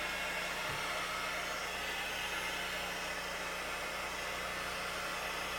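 Steady whirring machine noise with a constant low hum, unchanging throughout.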